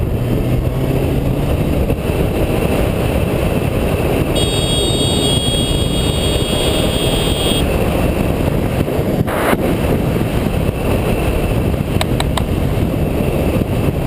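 Motorcycle riding at speed, heard from a helmet camera: heavy wind rush over the engine. For about three seconds in the middle, a steady high-pitched tone sounds over it.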